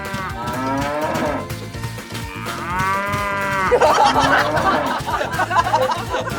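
Cows mooing: two long moos, the second about two and a half seconds in, over quiet background music. A busier, jumbled sound follows from about four seconds in.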